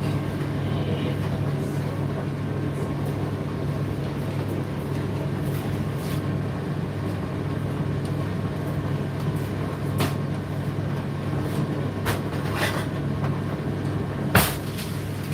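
Indesit IDC8T3 condenser tumble dryer running with a steady low motor-and-drum hum. Four sharp knocks come in the second half, the loudest near the end.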